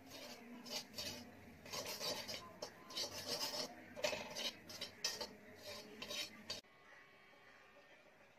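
Steel ladle scraping and stirring rice around the bottom of a metal kadai, in repeated rasping strokes that stop abruptly about two-thirds of the way through.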